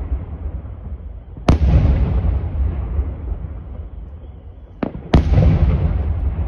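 Aerial fireworks shells bursting: two loud booms about three and a half seconds apart, each followed by a long rumble as it dies away. A short sharp crack comes just before the second boom.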